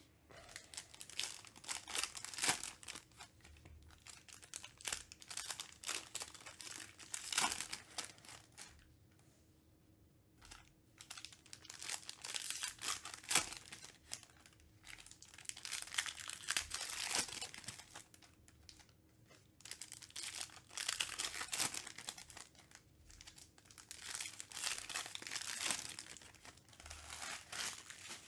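Foil trading-card pack wrappers being torn open and crinkled by hand, in repeated bouts of crackling separated by short pauses.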